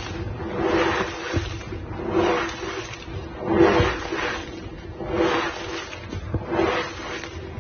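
White gym chalk powder being squeezed and pressed into a block, giving squeaky crunches that come in repeated swells about every second and a half, sped up to double speed.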